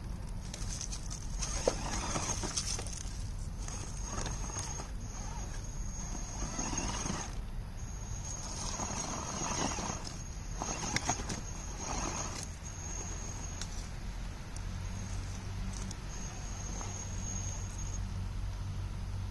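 1/10-scale RC rock crawler working its way up a rock face: its electric drivetrain gives a high whine that comes and goes, with bursts of tyres scrabbling and scraping on rock.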